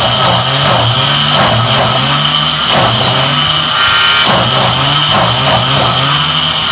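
Electric blender's motor running at full speed, its blades churning a jar packed with Orbeez water beads; loud and steady, with the pitch wavering slightly as the load shifts.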